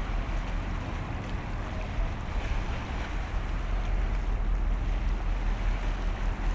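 Wind buffeting the microphone outdoors: a steady low rumble with a hiss over it, with no distinct events.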